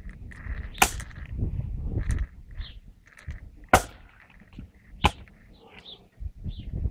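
Kukri blade chopping into short firewood billets on a wooden chopping block: three sharp strikes, about a second in, near four seconds and about five seconds in, with lighter knocks of wood between.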